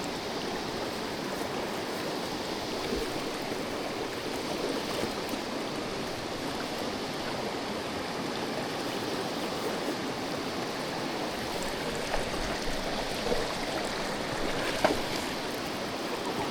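River water rushing steadily over rocks. A few short knocks come in the last few seconds.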